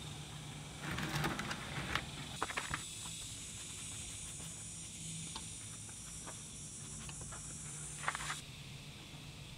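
Cloth rag rubbing and wiping over a scooter engine's crankcase around the open oil drain hole, in short scuffing bursts about a second in and again near the end, with a few small clicks between.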